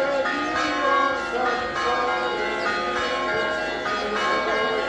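Orthodox church bells ringing a continuous festive peal, several bells struck in quick, uneven succession so that their tones overlap.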